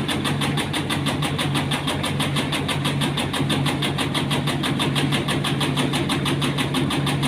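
Motor-driven tobacco-cutting machine running steadily, with a constant hum and a fast, even ticking.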